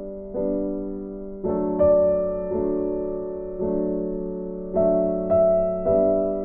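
Background music of slow, soft keyboard chords. A new chord is struck about once a second and each one fades before the next.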